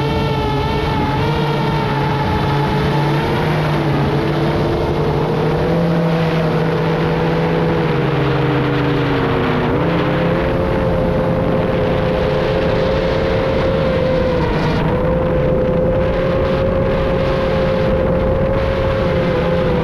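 FPV drone's electric motors and propellers whining in flight over rushing wind noise. The pitch drifts up and down with the throttle, dipping and jumping back up about ten seconds in.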